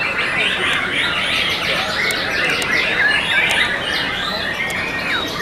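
Many caged white-rumped shamas (murai batu) singing against each other at once: a dense, unbroken tangle of whistles, chirps and quick trills.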